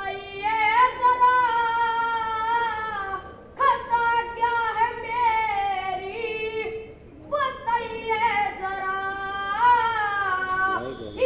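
A boy singing a ragni, a Haryanvi folk song, solo and unaccompanied, in long held melodic phrases with two short breaks for breath, about three and a half and seven seconds in.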